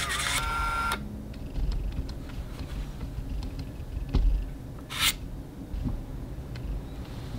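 Fujifilm Instax Mini Link printer's motor whirring as it feeds the finished film print out, cutting off about a second in once the print is ejected. Light handling sounds follow as the print is taken from the printer: soft taps, a dull bump and a short swish.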